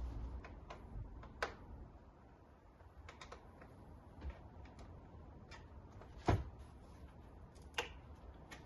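Scattered clicks and knocks of strimmer parts being handled and fitted together during assembly, with a sharper knock about six seconds in.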